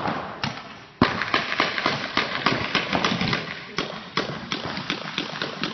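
Reball markers firing rapid, uneven strings of shots, with a sharp loud crack about a second in.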